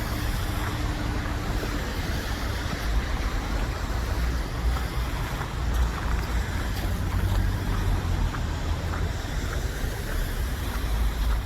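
Street traffic: cars going by with a steady low rumble and tyre noise that swells in the middle and toward the end.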